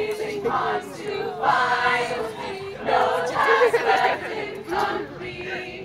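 A cappella group singing in harmony, voices only, with a held lower note under the shorter moving phrases of the upper voices.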